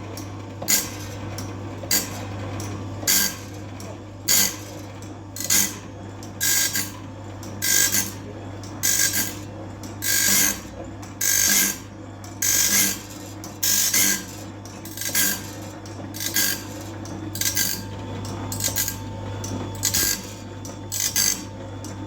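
Band sawmill blade sharpener grinding tooth after tooth: a steady motor hum with a sharp grinding burst about once a second, each time the sharpening wheel drops into a gullet and dresses a tooth before the blade is fed on.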